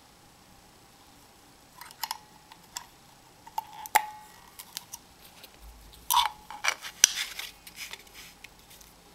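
Hard plastic clicking and scraping as the Lucky FF518 wireless sonar sensor's plastic body and screw cap are handled and closed up. The clicks come in scattered bursts from about two seconds in and are busiest near the end.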